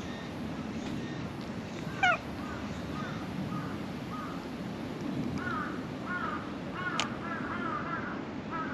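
Crows cawing: one loud, close call about two seconds in, then a run of short repeated caws, bunched together for a couple of seconds past the middle.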